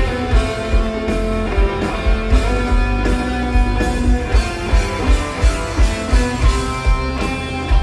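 Live rock band playing: electric guitars over a steady kick-drum beat of about two and a half thumps a second.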